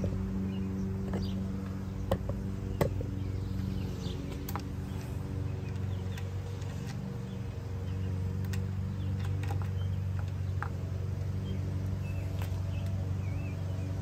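Scattered light metallic clicks and clinks of a double-roller timing chain and its steel cam and crank sprockets being handled and worked onto a Ford 302 small-block, the sharpest about two and three seconds in, over a steady low hum.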